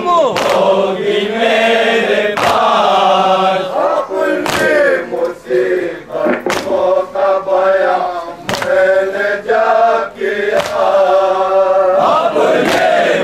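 Men chanting a nauha (mourning lament) together, with sharp slaps of hands on chests (matam) landing about every two seconds in time with the chant.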